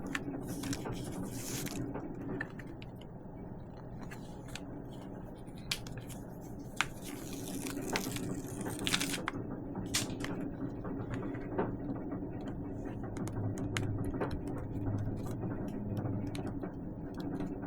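Handling noises of an adhesive LED light strip being pressed onto a full-face motorcycle helmet shell and its backing peeled off bit by bit: scattered light clicks, taps and scrapes. A steady low hum sits underneath.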